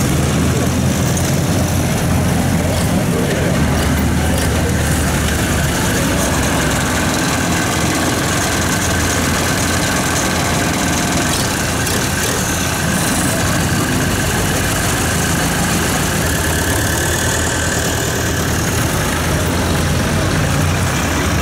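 Tractor engine idling steadily at low revs.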